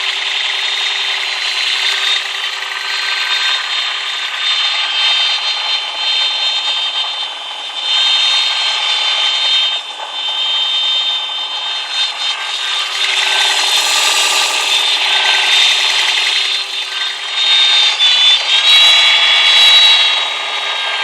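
A strange, unexplained noise from under the bonnet of a 2020 Toyota Prius: a continuous whine made of several steady high tones over a hiss. Near the end it grows louder and the tones briefly bend in pitch.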